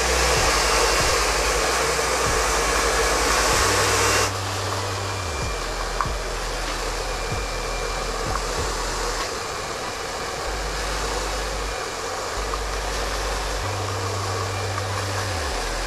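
Handheld hair dryer blowing steadily while hair is combed through. Its noise drops suddenly about four seconds in, then runs on at a lower level.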